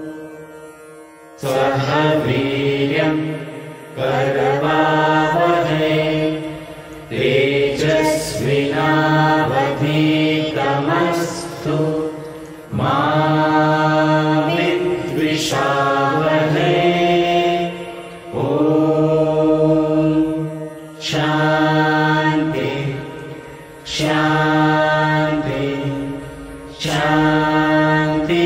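A mixed group of men and women chanting a Hindu prayer in unison, in long held phrases of a few seconds each with short breaks for breath between them.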